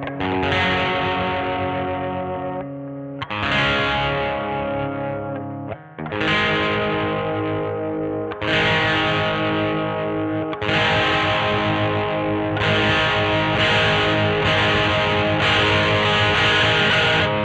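Electric guitar, a Squier Vintage Modified Jaguar, played through an amp with distortion: full chords strummed and left to ring for two or three seconds each, then strummed more often near the end.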